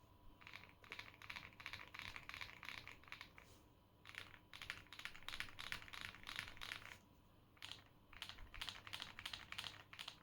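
Typing on a GAS67 custom mechanical keyboard with lubed Akko CS Rose Red linear switches, tape-modded and case-foamed: fast runs of keystroke clicks in three bursts, with short pauses about three and a half seconds and seven seconds in.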